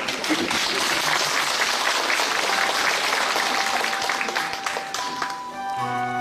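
Audience applauding in a large hall, dying away about five and a half seconds in. Music with sustained notes and a low bass begins just before the end.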